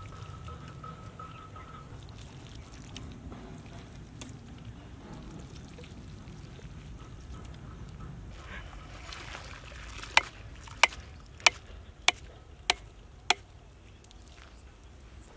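Boti curry being ladled onto rice in a large aluminium pot: a brief wet pouring, scraping sound, then six sharp metallic taps about half a second apart as the metal ladle is knocked on the pot, over a low steady outdoor background.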